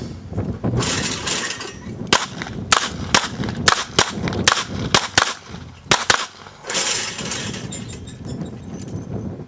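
A rapid string of handgun shots in a timed service-pistol stage: about ten sharp cracks between roughly two and six seconds in. A hissing rush comes just before and just after the string.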